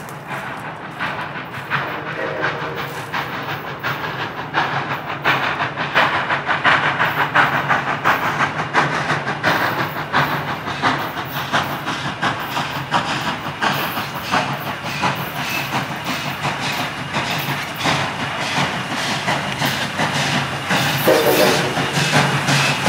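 Train hauled by an ALCO 0-6-0 steam locomotive, running by and growing steadily louder: steam hissing and dense clicking of wheels over the rails. A brief pitched tone comes about two seconds in and again near the end.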